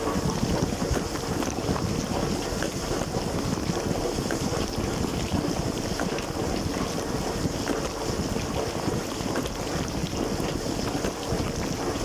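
Water jets from an LG dishwasher's spray arms pelting the dishes, racks and the camera inside the tub mid-wash: a steady rushing spray with small droplet ticks scattered through it.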